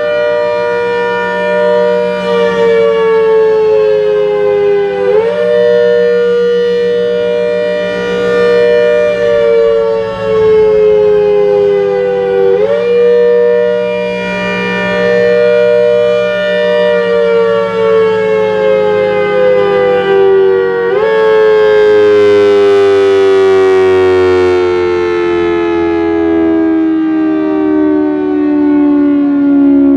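ACA Hurricane MKII 130 siren head, driven by a 7.5 HP Thunderbolt blower, sounding as its horn rotates. The pitch jumps up sharply every seven or eight seconds and sags slowly in between; from about twenty-one seconds in it slides steadily down without rising again.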